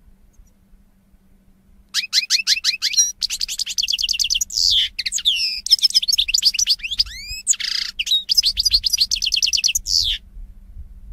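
European goldfinch singing: a fast, chattering run of trills, rising whistled glides and short buzzy notes, starting about two seconds in and breaking off about a second before the end.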